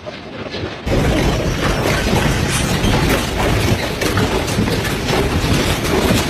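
Loud, continuous rumbling and rattling that starts suddenly about a second in: a room and its contents shaking during a strong earthquake.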